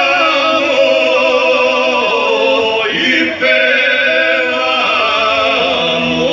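Male folk choir singing live, with long held notes carrying a vibrato. The phrase breaks off briefly about three seconds in, then the singing resumes.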